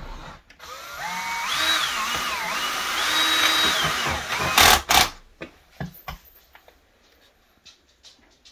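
Cordless drill running for about four seconds, its motor whine rising and falling in pitch, then two sharp knocks and a few light taps.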